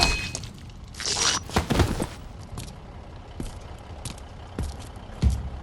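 Scrapes and rustles with scattered clicks, two short hissing bursts about a second in, and low thuds near the end.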